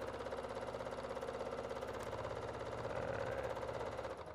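Domestic sewing machine stitching steadily at high speed on its start/stop button, foot pedal disengaged, with a fast even needle rhythm as the quilt is moved by hand for free-motion meandering.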